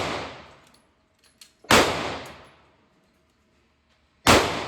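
Glock pistol firing two single shots about two and a half seconds apart, each ringing out for about a second, with the tail of a previous shot at the very start.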